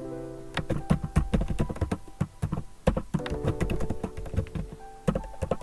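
Computer keyboard typing: a quick, uneven run of key clicks as a name is typed, over background music with held notes.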